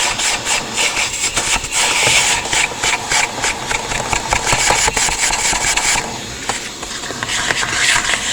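Hyper Tough vacuum cleaner running while its nozzle rubs and scrapes rapidly over the car's interior. The scraping eases about six seconds in and picks up again near the end.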